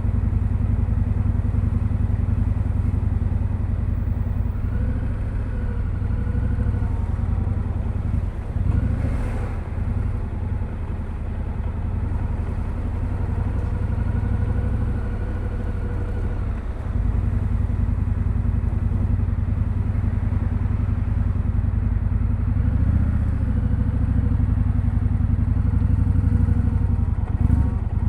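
Indian Scout Sixty Bobber's V-twin running through its stock exhaust while being ridden, the engine note rising and falling with the throttle and dipping briefly about eight and seventeen seconds in.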